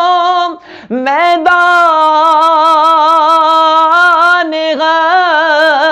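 Unaccompanied solo voice singing a naat, an Urdu devotional poem, with no instruments or effects. It holds long, wavering notes and breaks off briefly about half a second in, then sweeps up into a long held line with ornamented turns.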